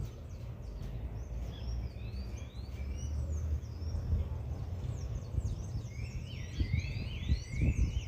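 Several small birds chirping and twittering together in quick sliding notes, growing busier near the end, over a steady low rumble.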